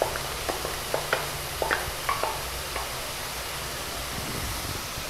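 Ground meat and diced vegetables sizzling steadily in a frying pan, with a run of light taps and clicks over the first three seconds as diced potato is emptied from a plastic cup into the pan.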